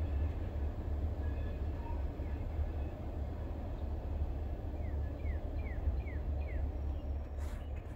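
Low, steady rumble of a freight oil train moving away down the line. About five seconds in, a bird gives five quick chirps, each sliding downward.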